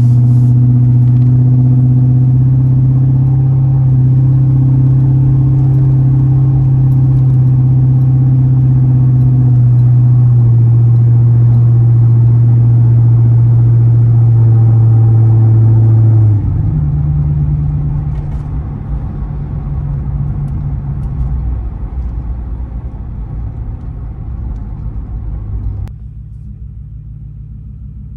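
Inside the cabin of a Ford Crown Victoria Police Interceptor with its 4.6-litre V8, driving along: a loud, steady low engine and road drone. About two-thirds of the way through it shifts up in pitch and eases off, and it drops quieter again near the end.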